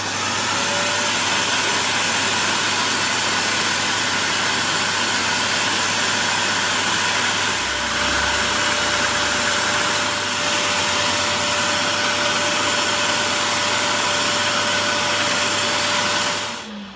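Hegner scroll saw running steadily as its blade cuts a fine fretwork pattern in a thin wooden board. The saw's noise drops away near the end.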